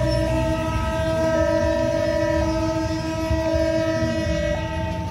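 Electronic warning alarm of a new WANTECH LEN railway level-crossing barrier, a steady two-tone note that switches pitch every second or two: the crossing is closed for an approaching train.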